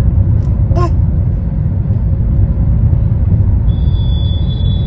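Road noise inside a moving car's cabin: a steady low rumble, with a short voice sound about a second in and a steady high tone near the end.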